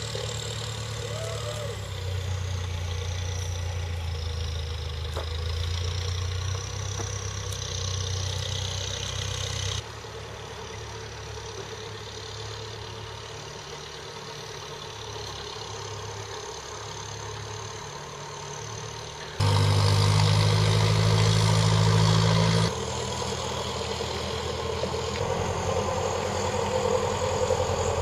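Aircraft tow tractor's engine running steadily while pulling a large aircraft, with a low hum; the sound changes abruptly in loudness three times.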